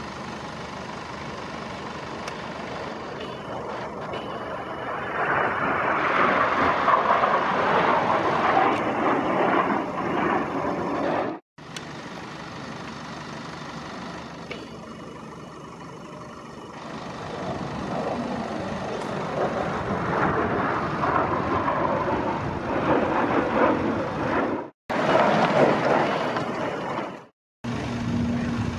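Propeller aircraft engine noise from planes flying overhead, swelling and fading twice. It is broken by a few abrupt, momentary silences.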